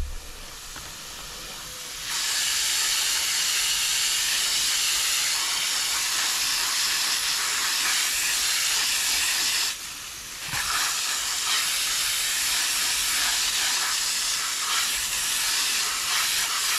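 Water spraying onto the robotic pool cleaner's filters, rinsing the dirt out. It makes a steady hiss that starts about two seconds in, breaks off for about a second near the middle, and then resumes.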